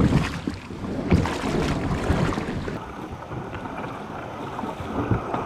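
Knocking and rustling of gear being handled in a plastic kayak, with wind rumbling on the microphone. The knocks are busiest in the first few seconds, then it settles to a steadier rush.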